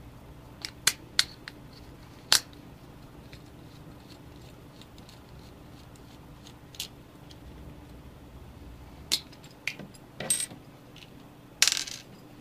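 Small hard parts and tools clicking and tapping as they are handled while a cigarette-lighter plug is being assembled. About ten sharp clicks are spread irregularly, with a short scrape or rattle near the end.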